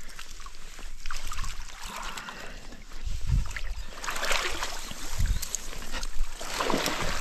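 A tench thrashing at the surface and water sloshing as it is drawn into a landing net, then water splashing and streaming off the net as it is lifted out, with two dull low thumps along the way.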